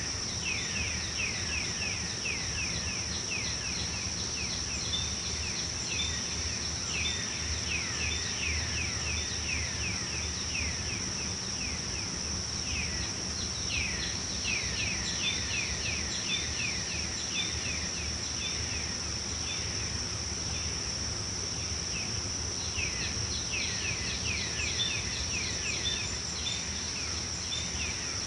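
Tropical forest ambience: a steady high-pitched insect drone, with bouts of quick, repeated down-sweeping bird chirps that come and go in clusters over a low background rumble.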